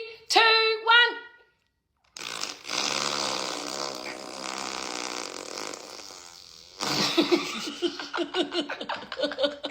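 A person making sound effects with their mouth: two short pitched vocal calls, then a long fart-like noise lasting several seconds, then rapid stuttering pulses near the end.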